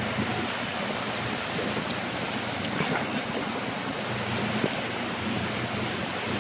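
Motorboat underway: a steady low engine hum under rushing water, with wind buffeting the microphone.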